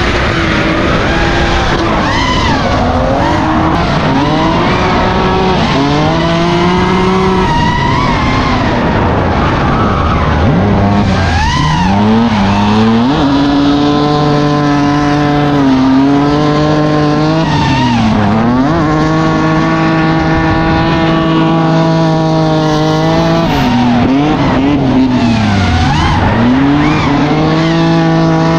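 Drift car's engine held high in the revs in long, steady pulls that dip briefly and climb back several times, with tyres squealing under the slide.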